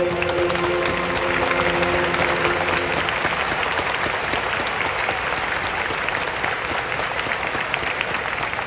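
Stadium crowd applauding, with the held final chord of a school song over the stadium speakers fading out about three seconds in.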